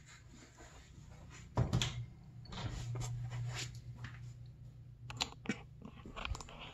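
Footsteps and scattered knocks and clunks as a wire oven rack of freshly powder-coated parts is carried across the shop floor and handled, over a steady low hum. A loud cluster of knocks comes about a second and a half in, and sharp clicks and knocks follow from about five seconds in.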